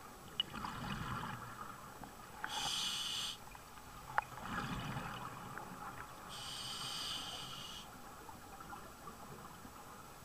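Scuba diver breathing through a regulator underwater, two breaths: each exhalation is a low bubbling rumble with small clicks, and each is followed by a hissing inhalation through the demand valve.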